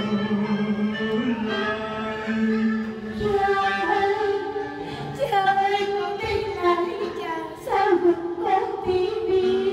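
A singer performing a Vietnamese funeral song in traditional opera style into a handheld microphone, the voice sliding and wavering between held notes, with accompaniment underneath.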